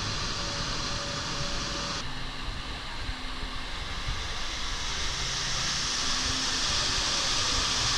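Steady rushing and splashing of a waterfall pouring down artificial rock. The sound changes abruptly about two seconds in and grows louder and hissier toward the end.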